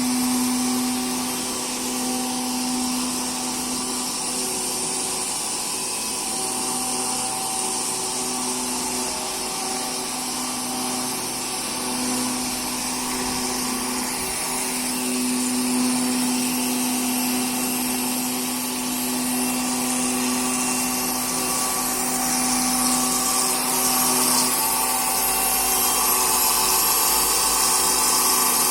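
CNC stone-cutting machine running steadily, a high hiss with a hum under it that drops out briefly several times and stops near the end.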